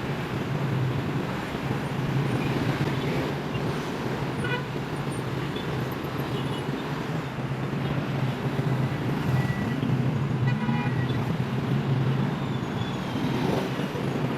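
Steady city street traffic noise with a low engine hum underneath, and short runs of high beeps about four seconds in and again around ten seconds in.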